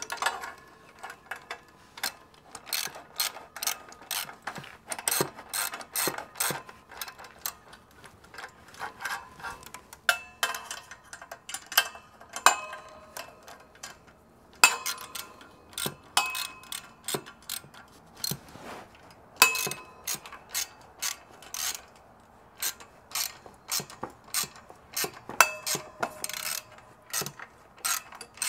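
Ratchet wrench clicking in short, irregular runs as exhaust header bolts are worked, with sharp metallic clinks of tools and bolts in between.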